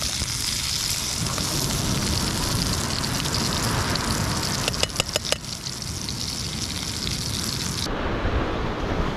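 Fish pieces sizzling in hot oil in a small camping frying pan, with a few quick clicks of a knife against the pan about five seconds in. Near the end, the sizzle cuts off and a duller rushing noise is left.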